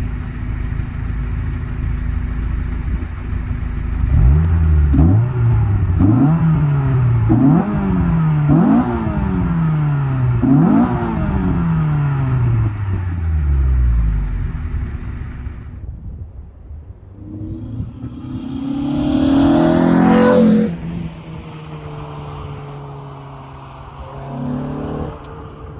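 Renault Clio RS 172's 2.0-litre four-cylinder, breathing through a KTEC induction kit and an InoxCar 76 mm sport end muffler, idling and then blipped sharply several times, each rev climbing fast and falling back to idle. Later the car accelerates past, its engine note rising to a loud peak, then dropping off suddenly and fading.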